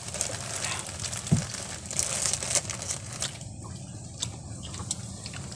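Plastic snack bag crinkling as a hand rummages in it, with a soft thump about a second in.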